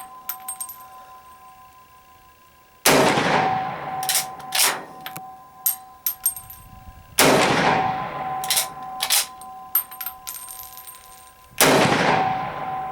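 Swiss K31 straight-pull rifle firing 7.5x55mm Swiss three times, about four seconds apart, each shot echoing away with a lingering ring. After each shot come a couple of sharp metallic clacks as the straight-pull bolt is cycled back and forward to eject and chamber the next round.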